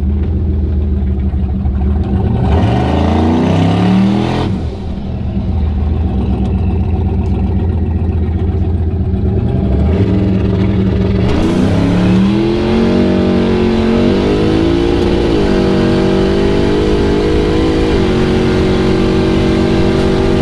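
Turbocharged 5.3 LS V8 in an OBS Chevy pickup revving hard during a rolling burnout. The engine note makes a short climb that falls away about four seconds in. It then climbs again from about eleven seconds in and holds high and wavering, with a step down near the end.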